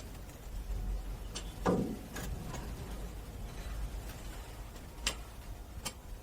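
Scattered sharp clicks and one duller knock from hand work on a compressor's water filter housing: screws and metal parts being handled to get the filter element out.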